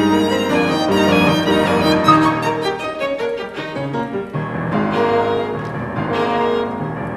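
Live chamber music: violin, French horn and piano playing together, held violin and horn notes over piano chords, a little quieter from about halfway through.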